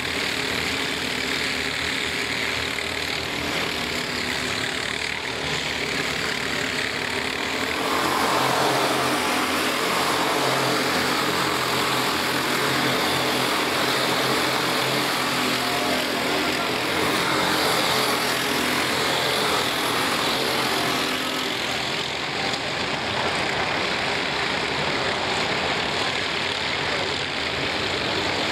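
Several four-stroke racing kart engines running at speed around the track. The sound grows louder about eight seconds in as a pack of karts comes closer.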